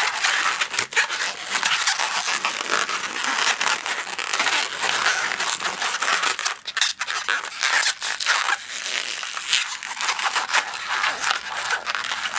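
Inflated 260 latex modelling balloon being twisted and worked in the hands: a dense, continuous run of short squeaks and rubbing as the latex slides and twists under the fingers.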